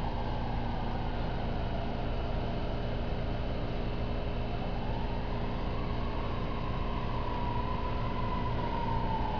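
Vehicle engine idling with a steady rumble, and from about halfway in a faint siren wail slowly rising and wavering.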